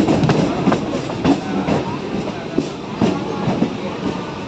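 Suburban electric multiple-unit train running, heard from an open doorway. Its wheels click irregularly, a few times a second, over rail joints and points.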